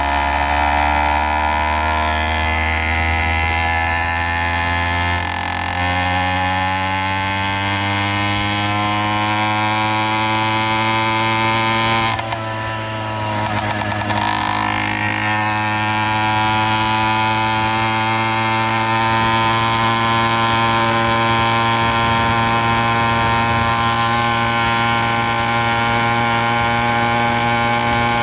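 Small engine of a motorized bicycle running under way, its pitch climbing slowly as it gathers speed. About twelve seconds in it eases off briefly and the pitch dips, then it picks back up and holds fairly steady.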